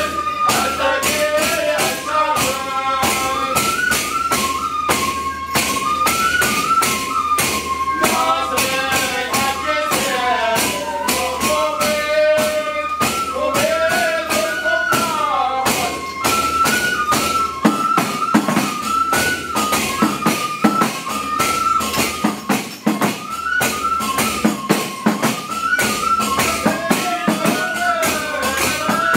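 Traditional Hadrami chanting: men's voices singing a stepping melody over steady beats of hand-held frame drums.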